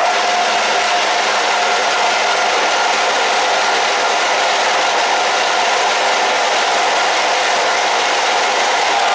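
Metal lathe running while a 40 mm twist drill in its tailstock bores into a spinning metal bandsaw-mill track wheel: steady machine noise of the lathe and the drill cutting metal, with a steady whine held throughout.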